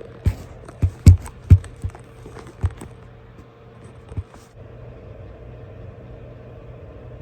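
Steady low hum with several sharp knocks in the first four seconds. The hum grows slightly fuller about four and a half seconds in.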